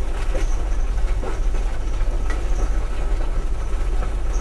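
Cat 972 wheel loader's diesel engine running steadily, heard from inside its cab: a loud, even low rumble with a few scattered knocks.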